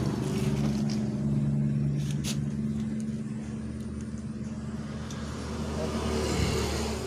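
A vehicle engine running steadily close by, its hum slowly fading away, with a light click about two seconds in.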